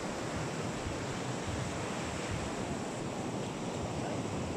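Steady wash of sea surf on a beach, with wind buffeting the microphone.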